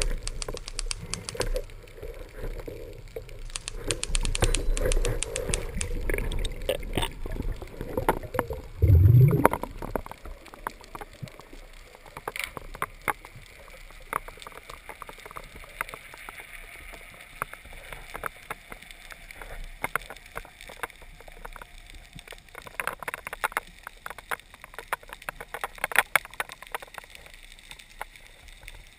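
Underwater sound picked up by a freediver's camera: water rushing past with many scattered sharp clicks and crackles, and one heavy low whoosh about nine seconds in. The water sound is louder and busier at first and settles to a quieter hiss with occasional clicks.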